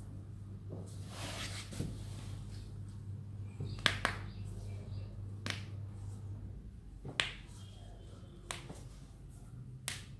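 Joints of the foot and ankle cracking under self-manipulation: about six sharp pops, spaced a second or two apart.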